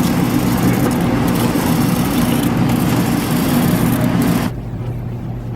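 Car interior noise while driving: steady engine and road rumble with a hiss over it. About four and a half seconds in, the hiss drops away suddenly, leaving a quieter low hum.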